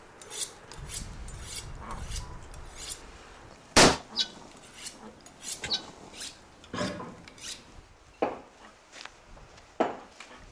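Scattered sharp clinks and knocks of cooking utensils against large metal pots, one much louder about four seconds in.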